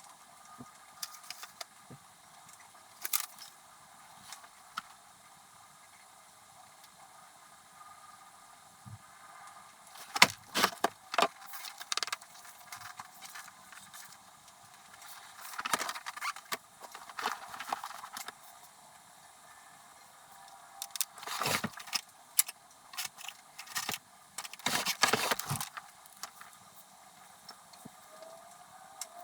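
Handling of stationery and paper on a desk, sped up: irregular clusters of sharp clicks, taps and rattles with quiet gaps between them.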